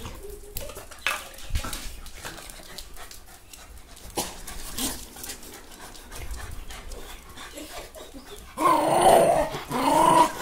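White spitz-type dog moving about with scattered light clicks and knocks, then a loud pitched vocal grumble near the end, rising and falling for about two seconds.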